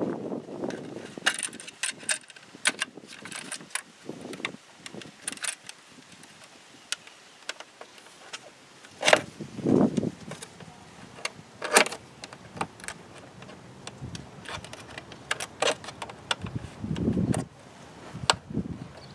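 A metal screwdriver working on the fittings of a plastic car air-filter box, making scattered clicks, ticks and scrapes, with a few louder knocks about nine seconds in and a duller one near the end.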